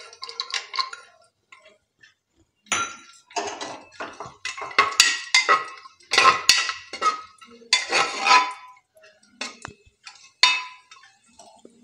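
Steel bowl and spoon clinking and scraping against the rim and inside of a pressure cooker as whole cashews and raisins are tipped into the hot oil. It is a run of short metallic clanks with a brief ring, starting a couple of seconds in and coming in several clusters.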